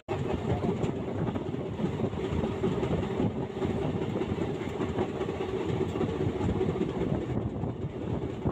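Passenger train running at speed, heard from the open side of a moving carriage: a steady rumble of wheels on the rails with a faint steady hum.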